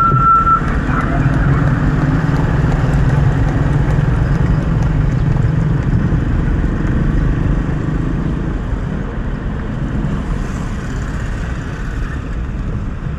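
Suzuki Jimny JB74's 1.5-litre four-cylinder engine and tyre noise while driving, a steady low hum that eases slightly in the second half.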